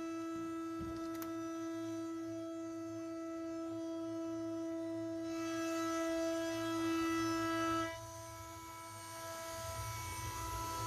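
Spindle of a 6040 CNC router running with a steady whine. About eight seconds in the whine drops in level and changes, and a low hum grows near the end.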